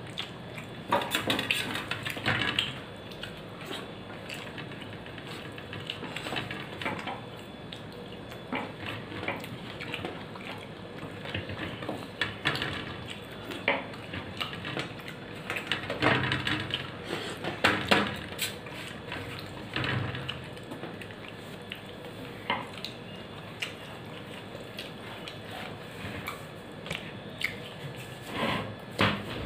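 Eating by hand from a steel plate: fingers scraping and picking at rice and fried food on the metal plate, with wet chewing and mouth sounds. Irregular small clicks and scrapes, with a few louder taps.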